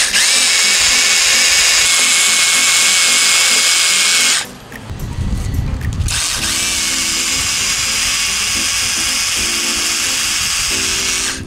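Rotary hammer drill spinning a threaded anchor rod down into a chemical anchor capsule in a concrete hole, churning the glue as the rod sets. It runs in two spells, with a short break around the middle.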